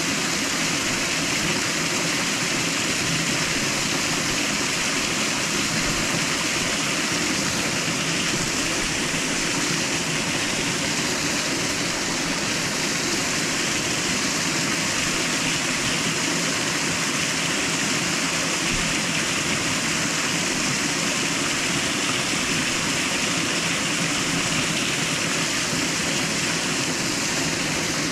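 Steady rush of water from a small waterfall pouring into a stream pool, an even, unbroken noise.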